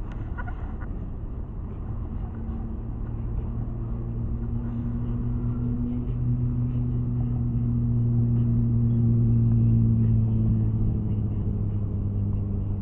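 Road traffic with a steady low engine hum that swells to its loudest about two-thirds of the way through, then eases slightly.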